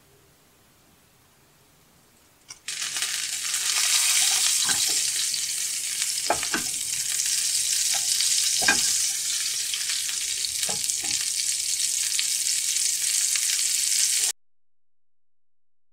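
Butter sizzling and foaming as it melts in a pan while a spoon stirs it: a steady, loud hiss with scattered pops and crackles. It starts about two and a half seconds in and cuts off abruptly near the end.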